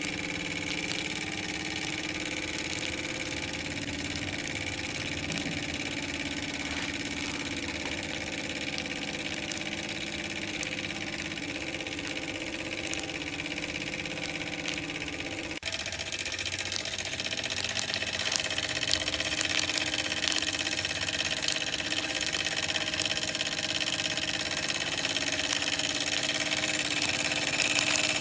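Microcosm M89 miniature oscillating-cylinder steam engine running steadily on steam from its solid-fuel-fired brass boiler, a steady mechanical run with a high hiss. About halfway through the sound changes abruptly and becomes louder and hissier.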